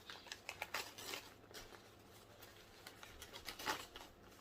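Plant shipping packaging rustling and crinkling as it is handled, with light clicks and taps. There is a busy flurry in the first second and a louder one near the end.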